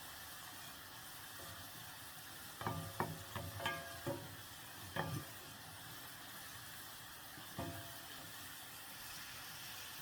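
Onions frying in oil in a pot with a steady sizzle, stirred with a spoon that knocks and scrapes against the pot: a cluster of knocks about three seconds in, then single knocks at about five and nearly eight seconds. The onions are being cooked to golden brown.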